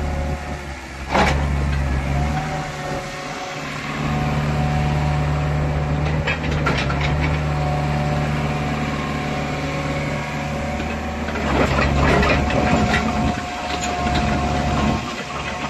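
Caterpillar 304CR mini excavator's diesel engine running steadily while the machine swings and works its boom, rising in level about four seconds in. A thin steady whine comes and goes, and there are a few sharp clanks of steel, one about a second in and a cluster near the end.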